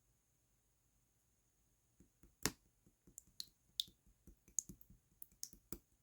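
Clear slime being handled: near silence, then about a dozen sharp, irregular sticky clicks and pops starting about two seconds in.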